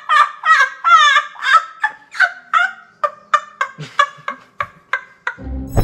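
A boy's high-pitched, gasping fits of laughter in quick bursts, about three a second, slowly fading: the 'Gordinho do Riso Frouxo' laughing-boy meme clip.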